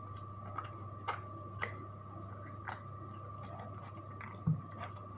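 Small dog chewing and mouthing at a toothbrush and toothpaste while its teeth are brushed, giving a few soft clicks over a steady low hum and faint high tone, with a single low thump near the end.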